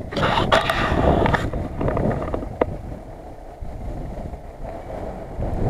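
Wind buffeting the microphone, loudest for the first second and a half, over the low, steady running of a Lada Niva's engine.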